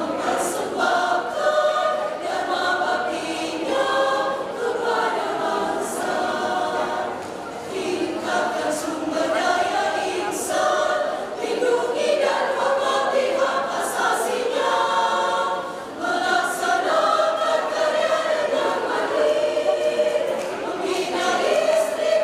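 Women's choir singing a song in several voice parts, the lines held and moving together without a break.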